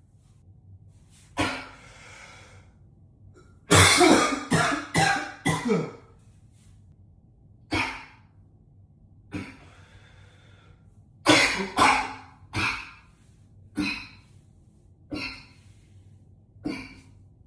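A man coughing hard in an echoey bathroom: a single cough, then a fit of about six rapid coughs, then single coughs every second or two with a second fit of about four, with breaths drawn in between.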